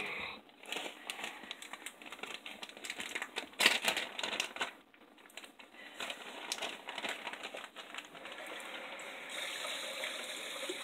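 Plastic bag crinkling and crackling as a bag of shredded cheese is handled and opened: a dense run of crackles in the first few seconds, scattered crackles after that, then a steadier rustle near the end.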